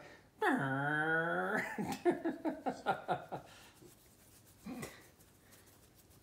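Staffordshire Bull Terrier puppy vocalising while having her belly rubbed: a long moaning whine that slides down in pitch and then holds, breaking into a pulsing grumble of about five pulses a second. These are the contented rumbling noises of a relaxed dog being massaged.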